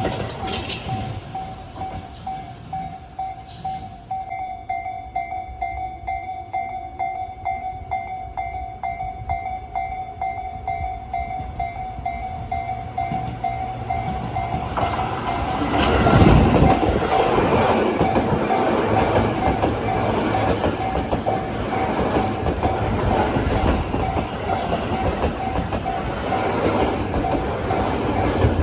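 Japanese railway level-crossing warning bell ringing steadily in a rapid pulse. About halfway through, a Tobu 10030 series electric train comes through the crossing: a loud rising rumble with wheels clattering over the rail joints, while the bell keeps ringing.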